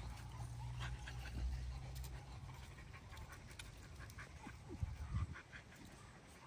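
Dogs play-fighting, with low growling in the first two seconds and two short falling yelps about five seconds in.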